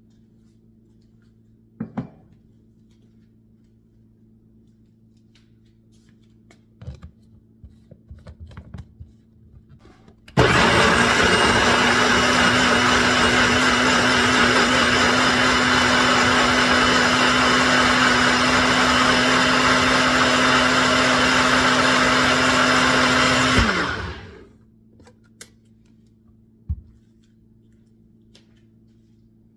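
NutriBullet personal blender running on apple chunks, blueberries and aloe vera juice: a loud, steady motor whine that starts about ten seconds in, runs for about thirteen seconds and then spins down. Small plastic clicks and knocks come before it as the cup is seated on the base, and after it as the cup is lifted off.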